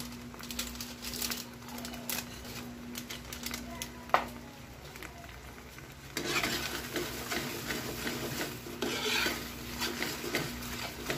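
Metal spoon stirring and scraping a thick sauce in a nonstick frying pan, with light clinks against the pan and a sharp clink about four seconds in. The stirring gets louder and more continuous about six seconds in.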